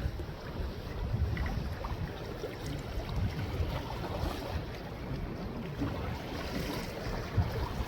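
Steady wind and sea noise aboard a small fishing boat at sea, with wind rumbling on the microphone.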